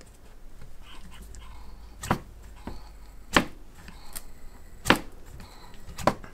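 Four sharp clicks, a little over a second apart, from a small model hit-and-miss engine whose crankshaft is being turned by hand against the compression of its piston. The spark plug and port holes are covered so that the cylinder holds compression.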